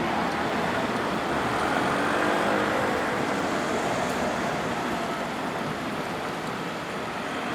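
Road traffic running steadily, with a motor vehicle passing and loudest about two seconds in.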